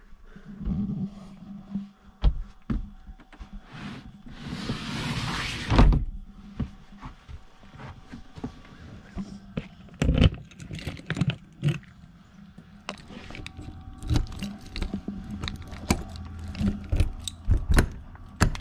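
Irregular knocks, clunks and clicks of things being handled and set down, with a short burst of hiss about four to six seconds in.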